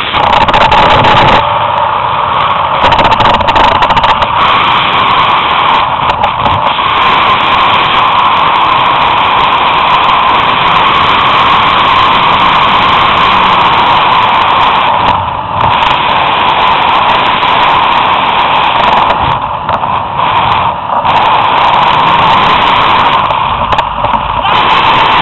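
Zip-line trolley's pulleys running at speed along a steel cable: a loud, steady whine whose pitch sags slightly and rises again toward the end. Wind buffets the microphone, with a few brief dips in loudness.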